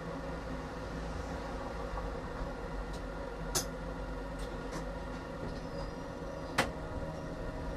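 Tram running on its rails: a steady rumble with a hum of several steady tones, and two sharp clacks, about three and a half seconds in and again near seven seconds.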